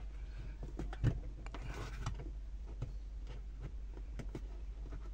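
Scattered light plastic clicks and taps of hands working at a car's roof dome-light housing, with one sharper click about a second in, over a steady low hum.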